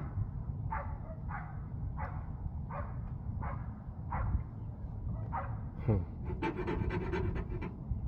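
A dog panting in a steady rhythm, about one and a half breaths a second, over a steady low rumble, with a run of small clicks near the end.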